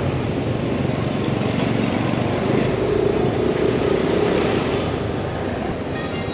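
Ride on a motor scooter through city traffic: the scooter's engine running under a steady rush of road and traffic noise from the surrounding motorbikes and cars.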